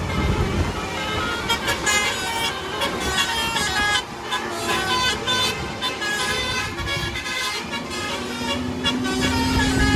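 Bus telolet horns (Basuri multi-tone horns) playing quick melodic note runs over engine and traffic noise. A low tone that slowly rises in pitch comes in near the end.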